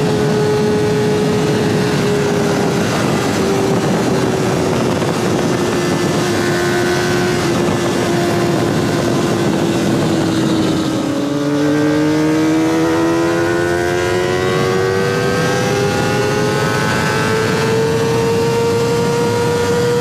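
Kawasaki ZX-25R's high-revving 250 cc inline-four through a DX Generation Sphere aftermarket exhaust, riding along. The engine note sinks slowly for about ten seconds as the throttle eases off, then climbs steadily again as the bike accelerates.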